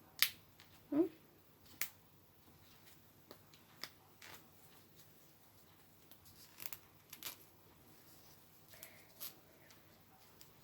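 Small plastic doll accessories being handled and fitted, giving scattered faint clicks and light rustles.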